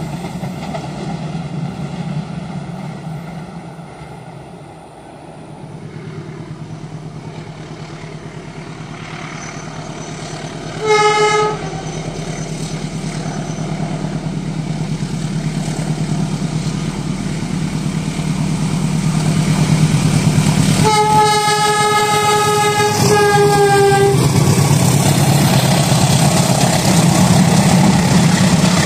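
Diesel locomotive approaching on an Indonesian main line. Its horn sounds one short blast, then about ten seconds later a longer blast of roughly three seconds with a brief break near its end. The engine's low rumble grows steadily louder as the train nears.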